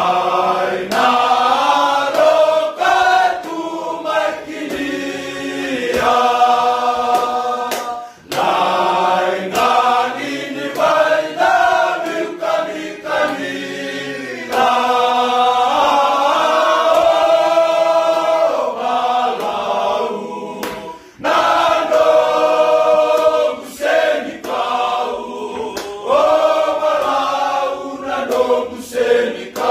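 A group of men singing a Fijian song together a cappella, in long held phrases with brief breaks between them.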